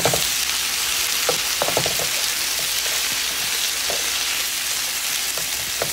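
Sliced onion, bell peppers and carrots sizzling steadily in hot curried oil in a non-stick frying pan while being stirred with a spatula.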